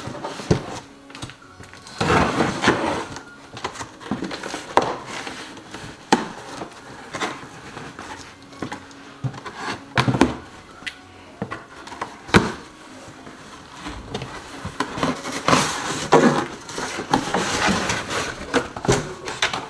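Rustling and crinkling of a parcel being unwrapped by hand, with scattered sharp clicks and knocks. The busiest rustling comes about two seconds in and again near the end.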